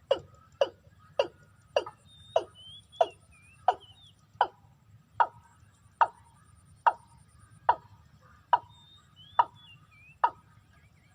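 Watercock calling: a long series of short, hollow, downward-swept notes, one about every two-thirds of a second, slowing slightly.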